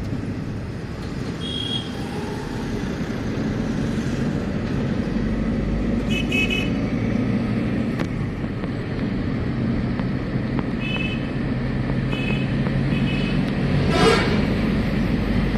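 Road traffic noise heard from a moving vehicle, a steady low engine and tyre rumble, with several short car-horn beeps from nearby traffic and a louder burst of sound near the end.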